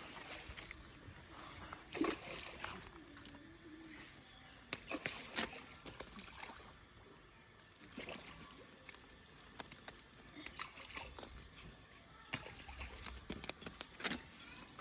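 Pond water splashing and sloshing in scattered short bursts, the loudest about two seconds in and again around five seconds in.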